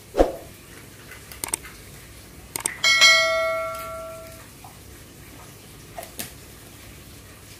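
Subscribe-button sound effect: a few quick mouse clicks, then a bright notification-bell ding that rings out for about a second and a half. A sharp thump comes just after the start.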